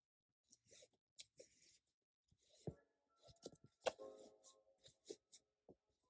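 Faint, scattered rustling and short rasps of corset laces being pulled loose, with fabric being handled.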